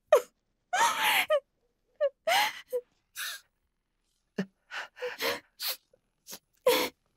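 A woman crying: a string of short sobs and gasping breaths, some with a wavering voiced cry, broken up by brief silences.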